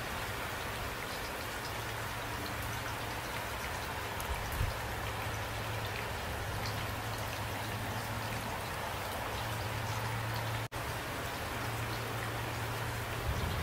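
Steady rain falling at night, a dense hiss with scattered drop ticks over a low steady hum. The sound cuts out for an instant about three-quarters of the way through.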